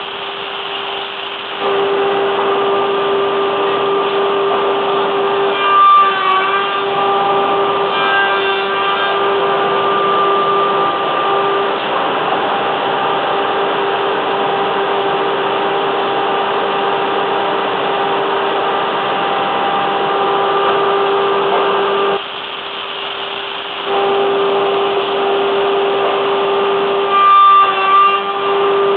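Woodworking plank-jointing machinery running with a steady humming whine, which drops out briefly twice, once just at the start and once about two-thirds of the way through. Short, louder rattling spells come a few seconds in, around eight seconds, and near the end.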